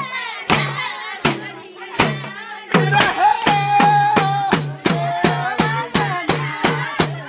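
Nepali Magar folk song in the thumke bhaka style: a voice holding long notes over a steady beat of low drum strokes with a jingling rattle on each stroke. The beat is slow at first, then quickens to about three strokes a second about three seconds in.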